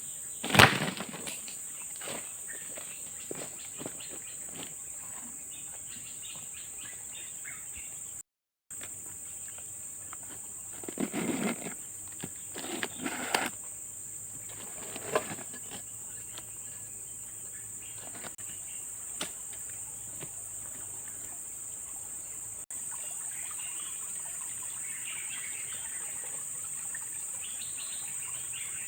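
Steady high-pitched drone of forest insects, with a sharp knock about half a second in and a few short rustling knocks near the middle.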